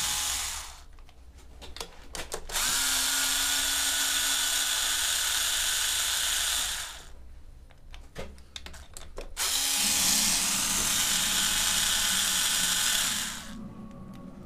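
A handheld power tool, of the drill or driver kind, running in three steady bursts of several seconds each, with a few clicks between them. It is being used on the engine's oil pan bolts to take the pan off.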